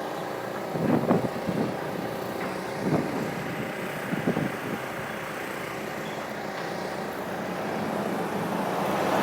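Street traffic noise: a steady drone of road vehicles, with a few brief, irregular thumps in the first half. A vehicle draws closer and grows louder near the end.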